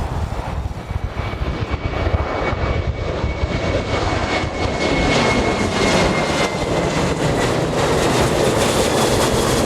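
Jet airliner departing at takeoff thrust: a dense engine roar builds up over the first few seconds and then holds loud, with a thin high whine sliding slowly down in pitch as it passes.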